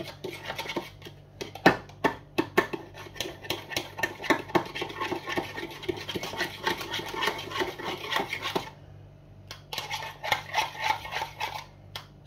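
A utensil stirring briskly in a bowl, mixing microwaved food, with rapid clicks and scrapes against the bowl's sides. It pauses for about a second near three-quarters of the way through, then starts again.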